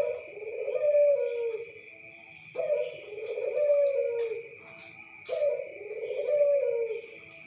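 Local puter dove (Barbary dove) cooing: three long coos, one about every two and a half seconds.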